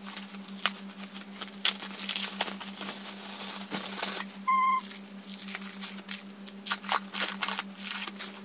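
Bubble wrap and a thin plastic bag crinkling and rustling in the hands as a package is unwrapped, with many crackles and brief rustles. A steady low hum runs underneath, and a short high squeak sounds about halfway through.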